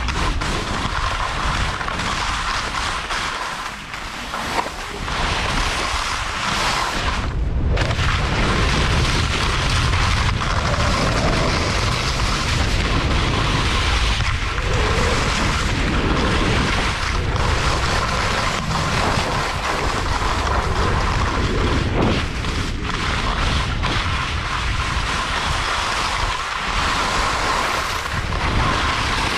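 Wind rushing and buffeting over the microphone during a fast downhill run on snow, with edges scraping over chopped-up, uneven snow.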